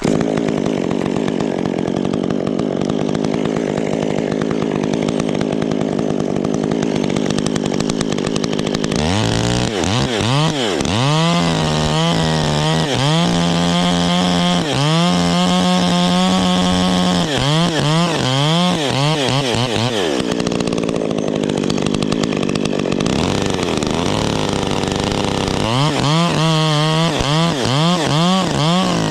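Chainsaw running throughout, cutting into a limb for a bypass cut. About a third of the way in, and again near the end, it is revved up and down over and over in quick rising-and-falling sweeps, with steadier running in between.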